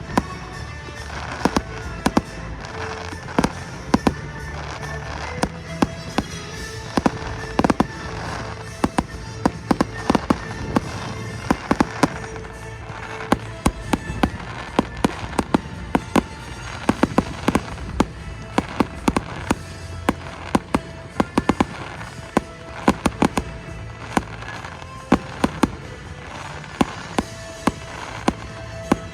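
Fireworks going off in rapid succession, many sharp bangs and cracks several times a second, with music playing underneath.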